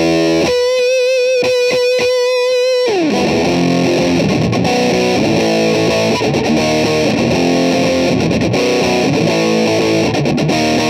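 Electric guitar played through a fuzz pedal. It holds one note with a wavering vibrato, slides down about three seconds in, then plays a thick, distorted chord riff.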